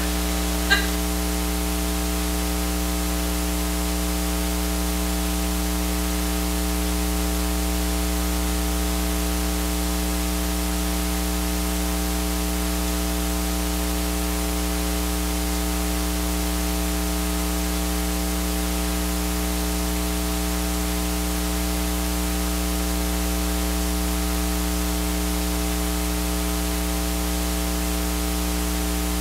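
Steady electrical mains hum with a stack of overtones over an even hiss, with no other sound. There is a single short click less than a second in.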